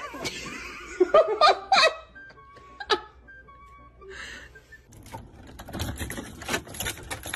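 A person laughing in loud bursts, then keys rattling and clicking in a door lock.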